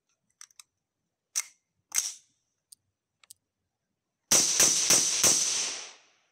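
A quick string of about four suppressed rifle shots, close enough together that they run into one another, then trail off. Before them come a few light clicks and two sharper ticks of the rifle being handled.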